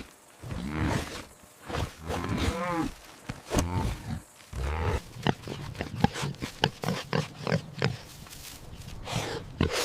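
Pigs grunting and squealing: several drawn-out calls that bend in pitch, then a quick run of short grunts in the second half.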